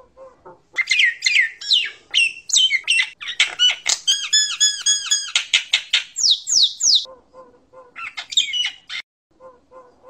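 Common myna (jalak nias) singing: a fast, varied run of loud whistles, squawks and falling sweeps, with a quick repeated trill in the middle. The song breaks off about seven seconds in, comes back for one short phrase a second later, and then only faint, low repeated notes go on.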